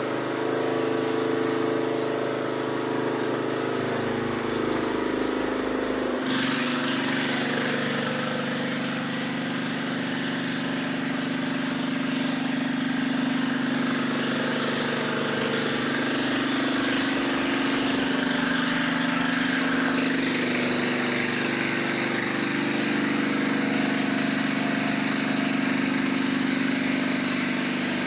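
An engine running steadily. About six seconds in, a hiss joins it suddenly and stays.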